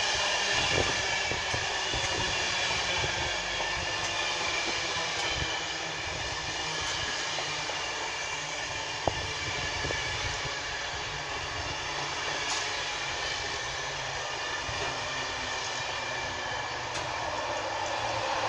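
A train running at a station with a steady, unchanging sound: several steady tones over a low rumble, with a few faint clicks.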